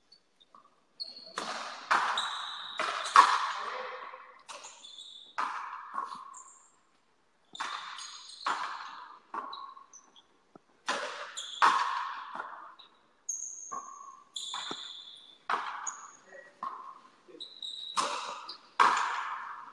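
Frontenis rally: a rubber ball struck back and forth by rackets and slamming off the fronton wall, a quick run of sharp, echoing hits about one or two a second from about a second in, with short high squeaks between some of them.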